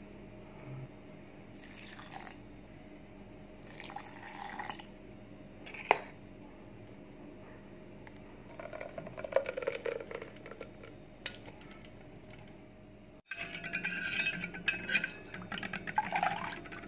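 Water and coconut milk poured and splashing in steel kitchen vessels: water going into a mixer jar, ground coconut slurry running through a plastic strainer, and the milk ladled, with short handling sounds and a sharp clink about six seconds in.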